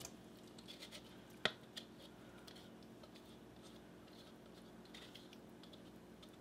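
Spatula scraping and tapping against a ceramic bowl as stir-fried vegetables are pushed out into a pan of sauce: a few light scrapes and clicks, the sharpest about a second and a half in.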